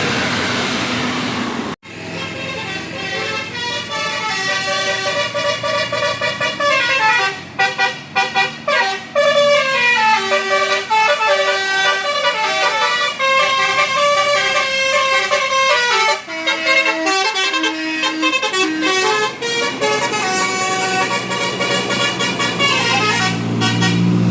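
Telolet Basuri multi-tone bus horn playing a melody, note after note, stepping and sliding in pitch, with a short break about two seconds in.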